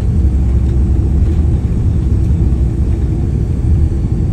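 Airliner cabin noise during the landing roll: a loud, steady low rumble from the jet's engines and its wheels rolling on the runway.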